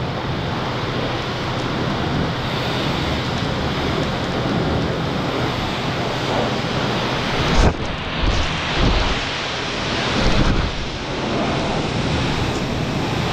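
High-pressure spray from a self-serve car wash wand hitting a car's bodywork: a steady spray hiss with one sharp knock a little past halfway.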